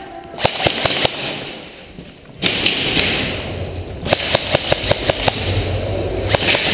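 Sharp clicks and taps over a rustling hiss: a few scattered ones early on, then a quick run of about six a second, from players moving and gear and guns working during an indoor airsoft game.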